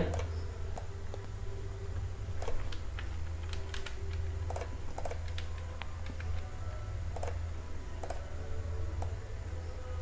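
Faint, scattered clicks of a computer mouse, a few over several seconds, over a steady low hum.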